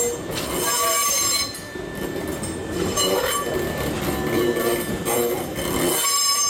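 Nankai 10000 series electric train rolling slowly over depot tracks and points, its wheels squealing on and off in high, ringing spells over a low rumble.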